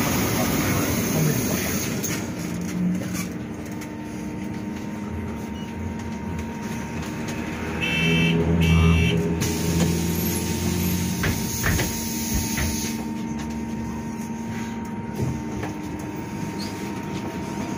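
Inside an Ursus CS12E battery-electric city bus standing still: a steady hum from its onboard equipment with a thin high whine. Two short electronic beeps sound about eight and nine seconds in, followed by a few light knocks.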